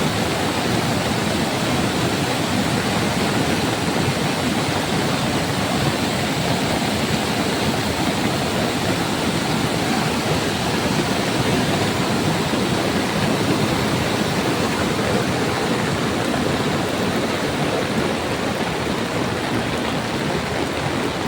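Waterfall pouring down heavily in monsoon flood, a steady loud rush of water.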